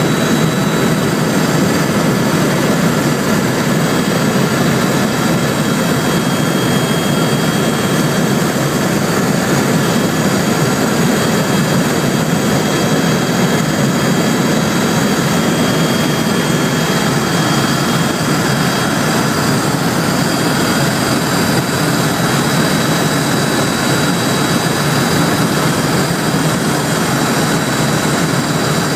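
Helicopter in cruising flight heard from inside the cabin: a loud, steady mix of turbine engine and rotor noise with a thin high whine running through it.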